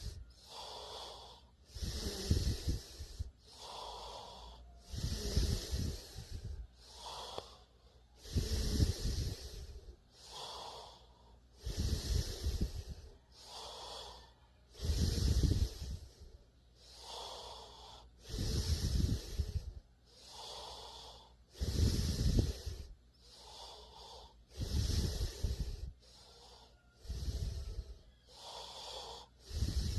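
A person snoring: a loud, low snore about every three seconds, nine in all, with a softer, breathy sound between each.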